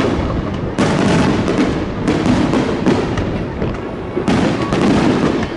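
Fireworks bursting in rapid succession, a dense crackling with fresh volleys starting suddenly about a second in and again near the end.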